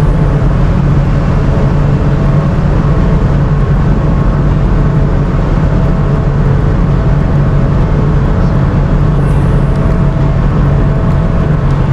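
Tugboat's diesel engines running steadily under load while it works close astern of a departing ship, a loud, unbroken deep drone with a steady low hum.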